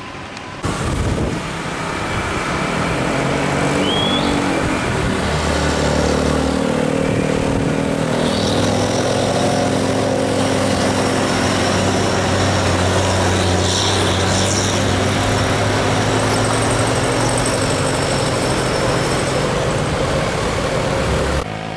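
Heavy diesel truck engine running at low revs as a heavily loaded dump truck passes, its note stepping up about eight seconds in, mixed with motorcycles and other road traffic.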